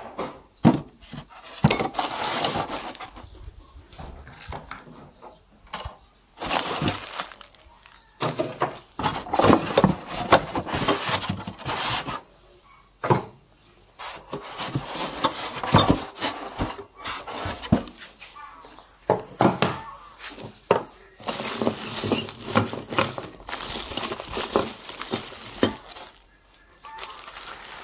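Unpacking noises: polystyrene foam packing rubbed and scraped as parts are taken out, with irregular clinks of loose metal parts. Near the end a plastic bag holding spanners rustles and clinks as it is handled.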